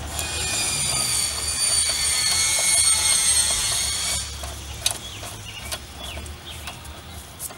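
High-pitched metallic squeal as a nut is run down a bolt under load to pull a new wheel stud into the rear hub. The squeal stops suddenly about four seconds in, followed by a few light clicks.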